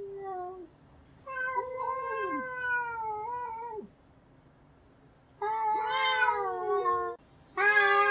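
Domestic cats yowling at each other in a fight: long, drawn-out wavering howls, four in a row with short pauses between, some dropping in pitch as they end and two voices overlapping near the middle.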